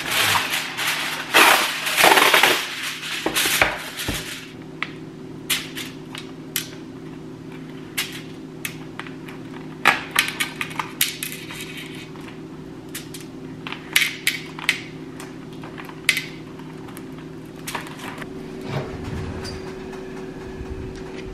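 Plastic packaging and aluminium foil crinkling for the first few seconds, then scattered light clicks and rustles as plant-based meatballs are set one by one on a foil-lined metal baking sheet, over a steady low hum. Near the end a low thump as the oven door is opened.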